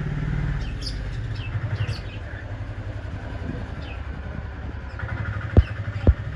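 Budgies and lovebirds chirping with short, high, falling calls over a steady low engine hum. Two sharp knocks come near the end.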